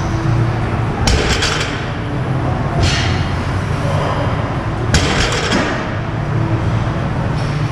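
Loaded deadlift barbell with bumper plates knocking down on the floor between reps, three sharp clanks about two seconds apart, each with a short metallic ring from the plates and bar.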